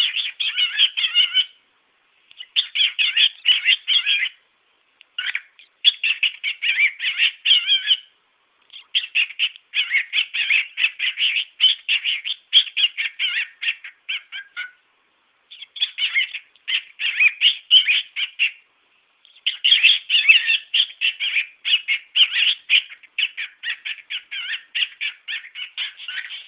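Cockatiel chattering in fast runs of short, rapid notes, in bouts of about two seconds broken by brief pauses.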